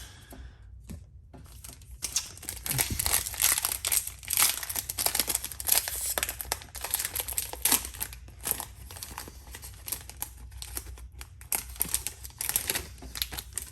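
Foil Yu-Gi-Oh! booster pack wrapper crinkling and tearing as it is opened by hand. There are dense crackles from about two seconds in.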